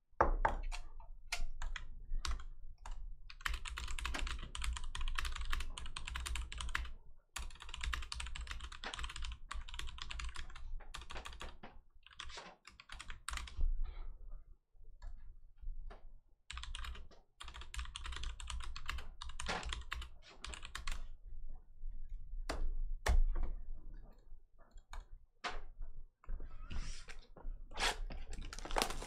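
Typing on a computer keyboard: several bursts of rapid key clicks with short pauses between. Near the end, a cardboard hobby box rustles as it is picked up and handled.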